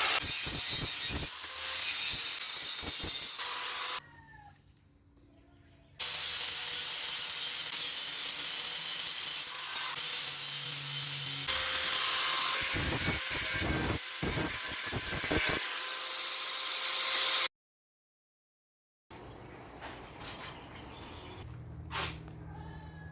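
A power tool cutting steel tubing and flat bar with a loud, hissing grind. It is chopped into several takes, with short quiet spells between them where faint bird chirps come through.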